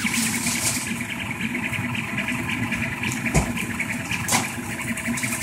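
Rostock MAX delta 3D printer printing: its stepper motors buzz and whine in quickly changing tones as the print head darts about, over the steady hum of its cooling fans. Two short clicks come in the second half.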